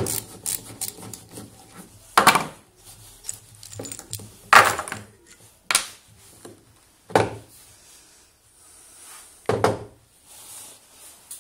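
Metal parts handled and set down on a desk: a three-jaw bearing puller, a motor armature and its pulled ball bearings. Light metal clicks at first, then five sharp clunks a second or two apart.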